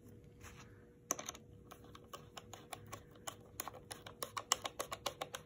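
Screwdriver turning a helmet accessory-rail screw: a run of small sharp clicks starting about a second in, coming quicker and louder near the end, as the screw is snugged up but not fully tightened.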